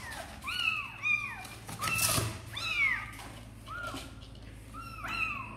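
Young kittens mewing repeatedly: about eight short, high-pitched meows, each rising then falling in pitch.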